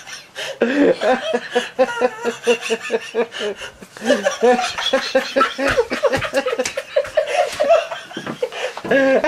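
Sustained laughter in long runs of rhythmic 'ha-ha' pulses, about four or five a second.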